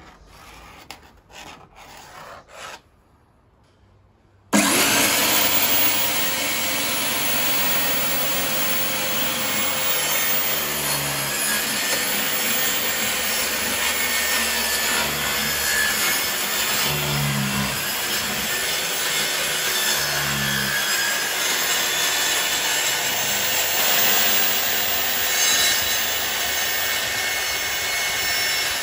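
After a few light taps and scrapes, a corded circular saw starts suddenly about four and a half seconds in. It then runs steadily and loudly as it rips through a large MDF sheet along a straightedge guide.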